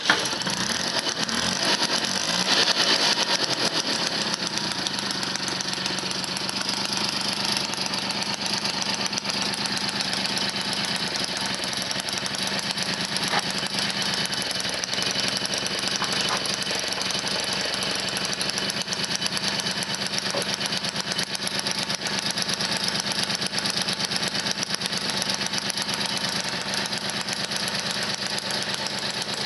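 Motobécane 51 moped's 50 cc two-stroke single-cylinder engine, newly rebuilt, catching on the first pedal stroke and then running steadily, a little higher about two to three seconds in before settling.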